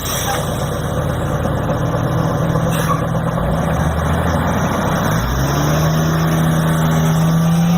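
Motor vehicle engine running steadily, then revving up from about five seconds in and holding at the higher pitch; it cuts off abruptly at the end. Most likely a bus engine sound effect laid over the toy school bus.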